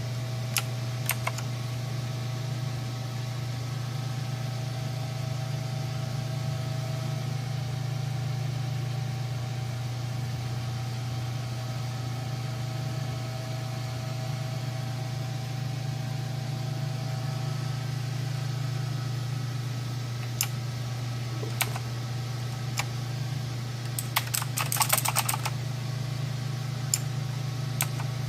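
Clicky mechanical keyboard keys pressed now and then: a few single clicks, then a quick run of rapid typing about three-quarters of the way through. A steady low hum is louder than the keys throughout.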